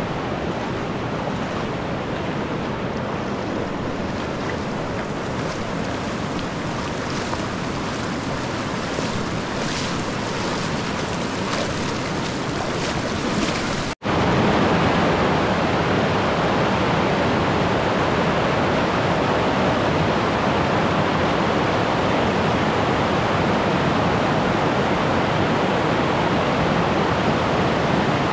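Fast-flowing river water rushing steadily. A sudden break about halfway through gives way to louder rushing water.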